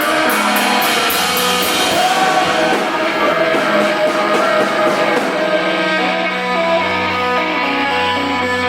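Live math-rock/punk band playing loud: electric guitars over bass and drums, with cymbal hits near the start and a low bass note coming in about two-thirds of the way through.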